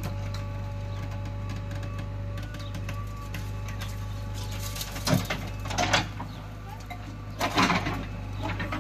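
JCB 3DX backhoe loader's diesel engine running steadily while the backhoe works the trench, with short bursts of clatter and thuds from the bucket and falling soil a little past the middle and again later on.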